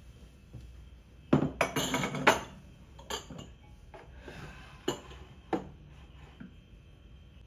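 Glass pitcher and drinking glasses being set down and shifted on a kitchen cabinet shelf, glass knocking and clinking: a quick flurry about a second and a half in, then a few single clinks.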